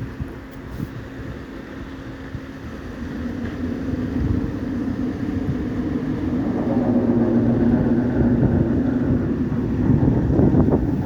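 A boat's engine or on-board machinery running with a steady hum, growing louder from about three seconds in and then holding level.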